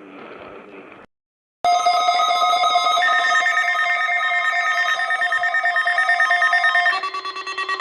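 Brief radio hiss, a cut to silence, then a loud electronic emergency alert tone: several pitches buzzing together with a fast warble, stepping to a lower pitch near the end.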